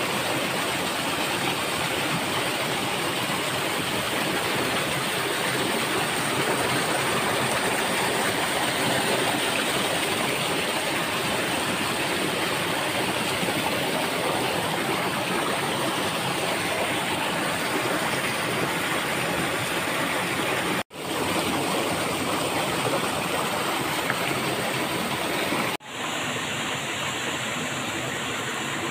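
Rushing water of a small waterfall pouring over the rocks of a stream, a steady loud hiss. It cuts out briefly twice in the last third, then carries on a little softer.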